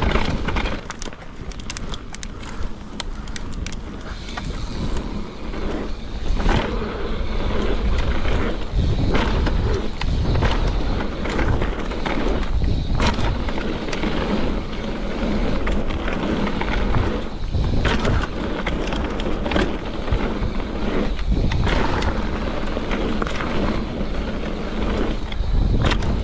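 Mountain bike riding fast down a rooty dirt trail: a continuous rush of tyre and wind noise with the bike rattling, broken by several sharp knocks as the wheels hit roots and bumps.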